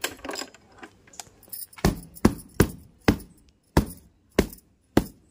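A hand slapping the vinyl seat of a scooter about seven times, roughly two sharp slaps a second, after a little light rustling and clinking.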